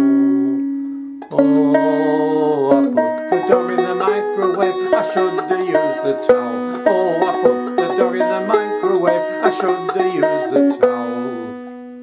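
Banjo played solo as an instrumental break. A chord rings and fades, then comes a run of quickly picked notes and chords. Near the end it settles on a chord that is left to ring out and fade.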